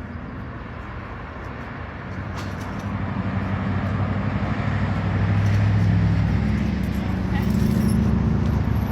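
Motor vehicle running close by: a low engine hum with road noise that swells about two and a half seconds in and stays loud.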